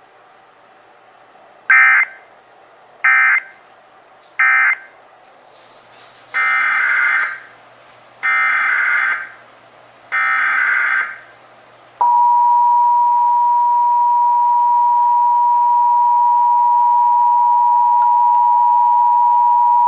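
Emergency Alert System broadcast tones: three short digital data bursts about 1.3 seconds apart, the end-of-message signal of the test just finished, then three longer data bursts of the next test's SAME header, then the steady two-tone EAS attention signal starting about 12 seconds in and holding for about 8 seconds.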